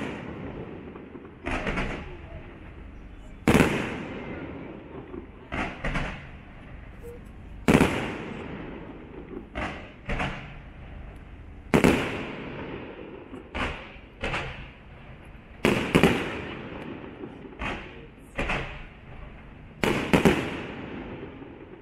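Fireworks aerial shells bursting in a steady rhythm: a loud bang about every four seconds, with a pair of smaller bangs between each one, and each bang trailing off in an echo.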